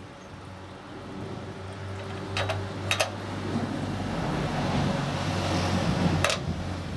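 A motor vehicle's engine hum and road noise swelling over several seconds, loudest near the end, with three sharp clicks: two close together, then one later.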